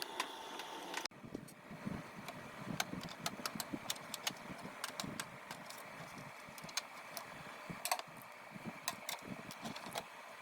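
Irregular light clicks and knocks of hard plastic as a toy keyboard is handled during repair.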